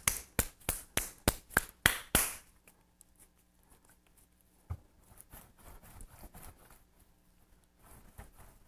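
A lump of soft clay slapped quickly between two palms, about four or five slaps a second, to form it into a coil; the slapping stops about two seconds in. After a single thump about halfway through, the clay is rolled under flat hands on a wooden table with a soft rubbing sound.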